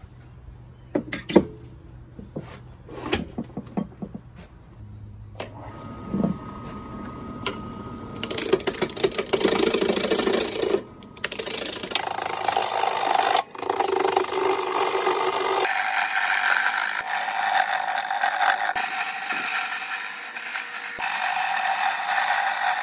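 A few sharp knocks in the first seconds, then, from about eight seconds in, a wood lathe spinning an oak blank while a turning gouge cuts it: a steady rough shearing of wood, broken off briefly a couple of times.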